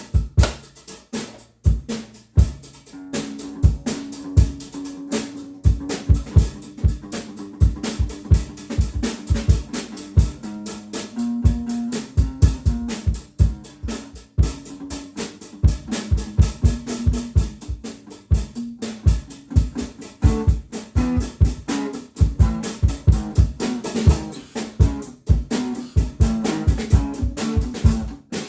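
Drum kit and guitar jamming together, with steady kick and snare hits; the guitar's notes come in about three seconds in.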